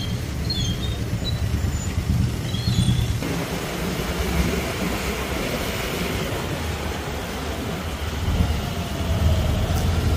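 Vehicle engine and road noise in city traffic: a steady low rumble, with the sound changing abruptly about three seconds in.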